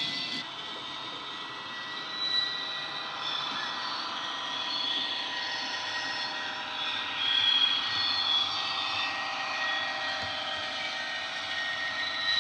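ESU LokSound 5 sound decoder playing a Vossloh G2000 diesel engine sound through a single small iPhone speaker in an HO-scale Mehano G2000 model locomotive, running steadily with the train under way. The engine note swells a little now and then.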